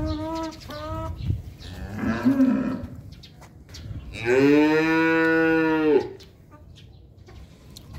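Kajla sheep bleating: a short bleat at the very start and a rougher one about two seconds in, then one loud, long, deep call about four seconds in that lasts nearly two seconds.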